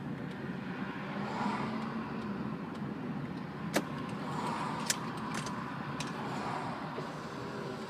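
A car driving, heard from inside the cabin: steady road and engine noise, with a few sharp clicks between about three and a half and six seconds in.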